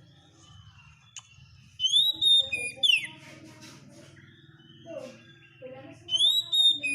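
Oriental magpie-robin (kacer) singing loud, clear whistled phrases: each a rising note held briefly, then a quick falling sweep. A phrase comes about two seconds in and another near the end, with quieter scratchy notes between them.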